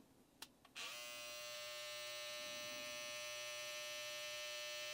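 A click, then a BaByliss FX One trimmer's N1 brushless motor spins up within a fraction of a second and runs with a steady buzz at about 7,200 rpm.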